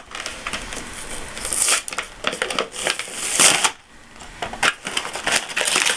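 Cardboard toy box being torn open by hand: rustling, crinkling and ripping, loudest about three and a half seconds in, then lighter crackling as the torn pieces are handled.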